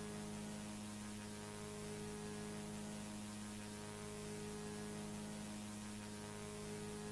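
Steady low electrical hum with faint hiss underneath, unchanging throughout, with no music or voice.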